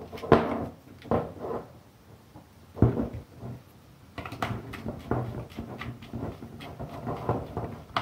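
Scattered clicks and light knocks from handling an ABB A26-30-10 contactor's plastic housing while a wire is fed into its screw terminal and worked with a screwdriver. The loudest knock comes nearly three seconds in.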